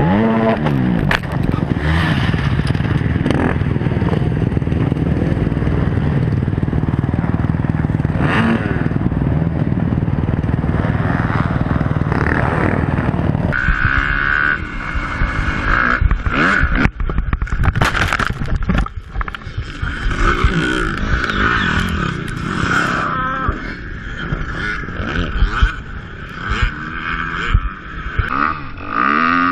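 Motocross dirt bike engines running hard, heard from on-board cameras. About thirteen seconds in, the sound cuts to a different bike, a Yamaha, and a few seconds later comes a cluster of sharp knocks and scraping clatter.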